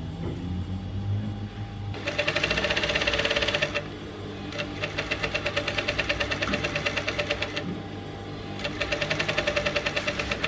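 Sewing machine stitching in three short runs of rapid, even needle strokes, pausing briefly between runs.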